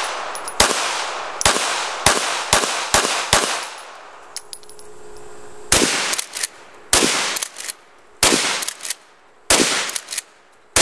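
Gunshots: about ten single shots, four of them in quick succession a couple of seconds in, then more spaced out after a pause of about two seconds, each trailing off in a long echo.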